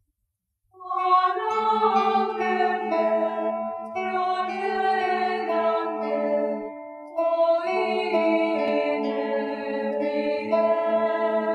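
Background music: slow, choir-like vocal music of long held, layered notes over a steady low note, beginning about a second in after a short silence.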